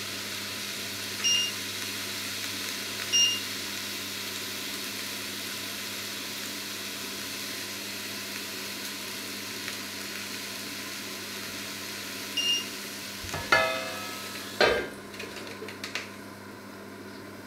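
Steak sizzling in a hot pan, with three short electronic beeps from the hob's touch controls. Near the end a metal lid knocks twice onto the pan with a ringing clatter, and the sizzle becomes quieter and muffled under it.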